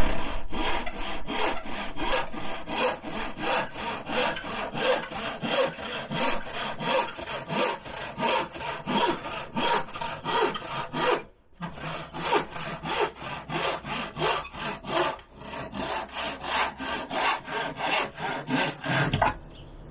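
Hand saw cutting through a wooden board in steady back-and-forth strokes, about two to three a second. The strokes break off briefly about halfway through, then resume and stop shortly before the end.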